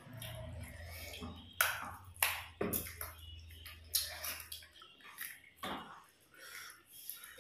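Close-up eating sounds of two people eating katla fish head by hand: chewing, sucking and irregular sharp mouth smacks about one to two a second. A low steady hum runs underneath and stops a little over halfway through.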